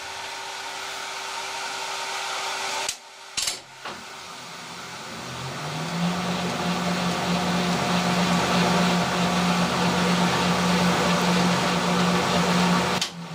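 Colchester lathe running during a thread-cutting pass, giving a steady mechanical hum with a low whine from the geared drive. The sound drops out about three seconds in with a couple of clicks, builds back up over the next couple of seconds to a louder steady run, and stops suddenly near the end.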